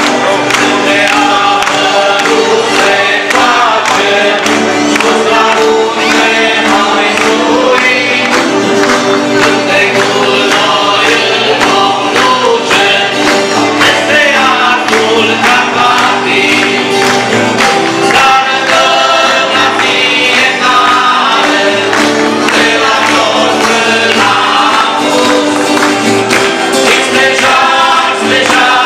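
A group of voices singing a song with steady instrumental accompaniment, and the audience clapping along.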